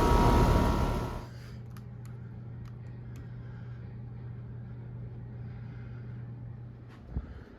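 Air conditioner running loud and steady, a condenser fan and compressor with a few steady tones in the noise. About a second in it drops abruptly to a much quieter, steady low hum with a few faint clicks.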